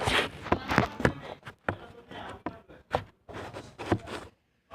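A series of irregular light taps and knocks from objects being handled and set down.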